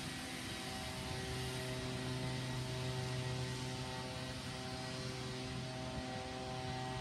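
Small dirt bike engine running at a steady pitch as the bike rides off, a constant droning hum that stops suddenly at the end.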